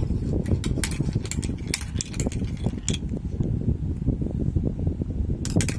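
Marbles rolling along a marble run track in a continuous rumble, with many sharp clicks and clacks. The clicks come thickest in the first three seconds and again near the end.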